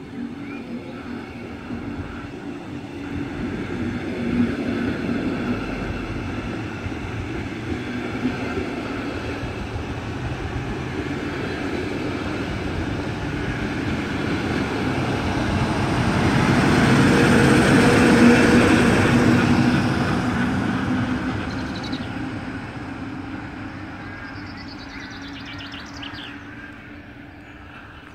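Two double-deck regional-express trains pulling out side by side, with the rumble of wheels on rails and a steady hum. The sound is loudest about two-thirds of the way through, as the electric locomotive at the rear of the near train passes close, and then fades away.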